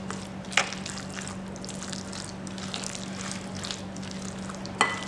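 Mayonnaise and chopped-vegetable filling being mixed in a glass bowl: soft, scattered stirring noises with two sharper clicks, about half a second in and near the end, over a steady low hum.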